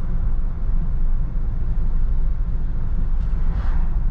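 Steady low rumble of road and engine noise inside a Jeep's cabin while it cruises at about 33 mph. A short, faint hiss comes near the end.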